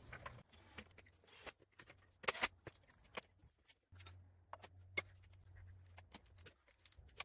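Scattered metallic clicks and clinks of wheel nuts being threaded onto a car's alloy wheel and tightened with a wrench.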